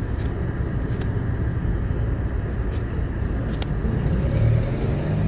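Steady low rumble of a running car, with a few light clicks over it.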